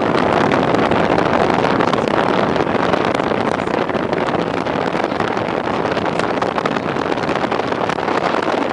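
Offshore powerboats running at speed across a lake: a loud, steady rushing noise of engines and spray.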